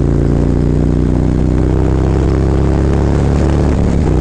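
Harley-Davidson Road Glide Special's Milwaukee-Eight V-twin running through a full Khrome Werks exhaust with a stage one tune, heard from the rider's seat under way, holding a steady note with small shifts in pitch.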